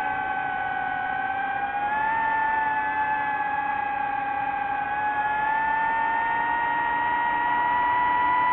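DJI FPV drone's motors and propellers whining, a steady pitched tone with overtones that rises about two seconds in, dips a little, then climbs slowly toward the end as the throttle changes.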